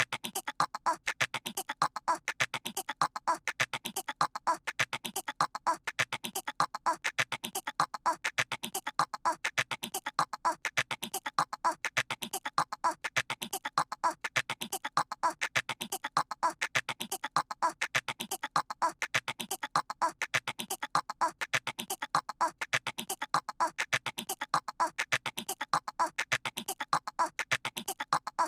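A voice imitating squirrel chatter: a fast, unbroken string of short clicky chirps that repeats as a loop about once a second.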